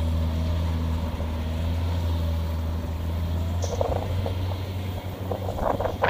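Kubota DC70 combine harvester running steadily as it cuts rice in soft, sinking ground: a low, even engine drone. A few short, sharper sounds come over it in the second half.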